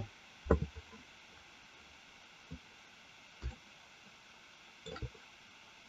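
A few faint, short taps and soft clicks, about five spread over several seconds, from a computer mouse and keyboard being used, with quiet room hiss between.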